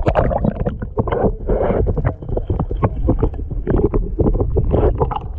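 Muffled water sloshing and rushing heard from underwater, with irregular knocks and thumps several times a second.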